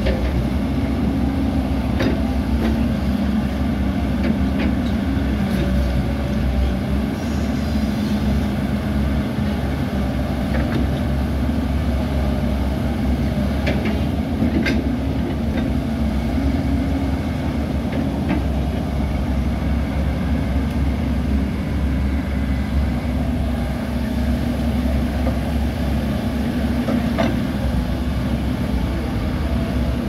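Crawler bulldozer's diesel engine running steadily, with the tracks clanking and several sharp metal clanks scattered through.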